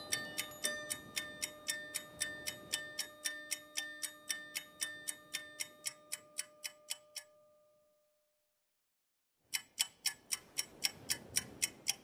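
Background music: a ticking, clock-like beat of about four clicks a second over a few held notes. It fades out about seven seconds in, and after a second or so of silence the ticking starts again.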